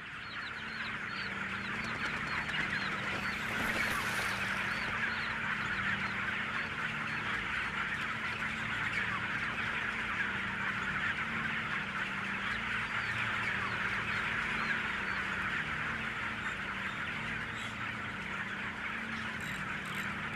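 A large flock of broiler chickens clucking and peeping all at once in a dense, continuous chorus, over a steady low hum.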